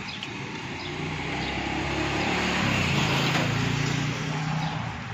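A motor vehicle drives past. Its engine hum swells, peaks about halfway through and fades again.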